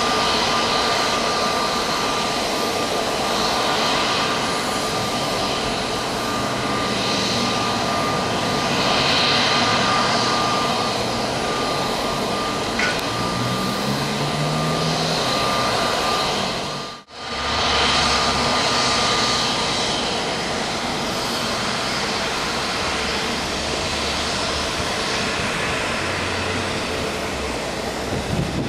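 Jet engines of a taxiing Airbus A320neo running steadily at low power, with a high whine over the rumble. About two-thirds of the way through the sound cuts out for an instant and comes back with more low rumble.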